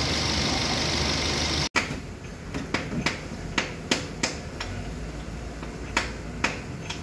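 Car engine running with the air-conditioning compressor engaged: a steady running noise with a strong hiss. It cuts off suddenly before two seconds in. A string of sharp, irregularly spaced clicks follows over a low background.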